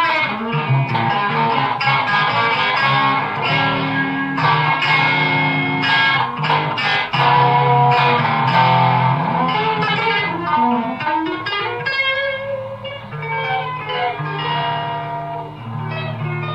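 Electric guitar played through a Marshall amplifier, improvised: quick runs of single notes, a note sliding up about eleven seconds in, then longer held low notes.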